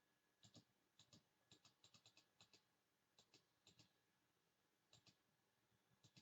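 Faint clicking at a computer, mostly in quick pairs of sharp clicks, with a rapid run of them in the middle, as a mouse and keyboard are used to look something up.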